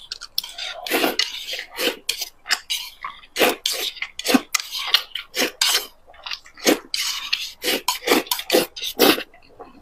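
Close-miked eating sounds of noodles: repeated wet slurps and chewing, with chopsticks clicking and scraping against a pan.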